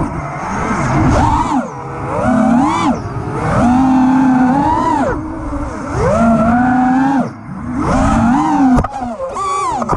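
Five-inch FPV quadcopter, with T-Motor F60 V3 2350 kV brushless motors spinning HQ 5x4.8x3 tri-blade props, whining in repeated throttle surges. The pitch climbs steeply, holds for a second or so, then drops back, about half a dozen times.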